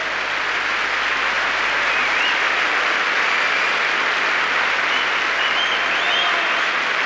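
Large arena crowd applauding a finished ice dance programme, swelling over the first couple of seconds and then holding steady, with a few short whistles above the clapping.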